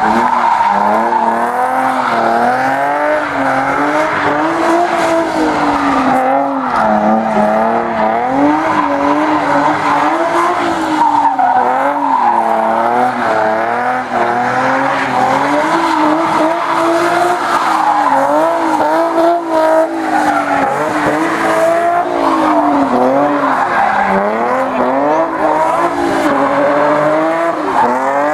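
A drift car's engine is held high in the revs while the car slides, its pitch rising and falling every second or two with the throttle. The tyres squeal throughout.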